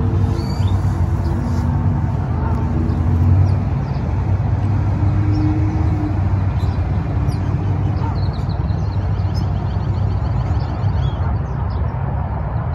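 Steady low rumble of distant road traffic under faint chirping of small birds, with a quick run of repeated chirps from about eight to eleven seconds in.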